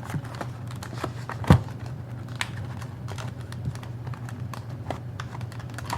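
Hands working a tight plastic sleeve off a model locomotive: scattered small clicks and taps of plastic, with one sharp louder click about a second and a half in, over a low steady hum.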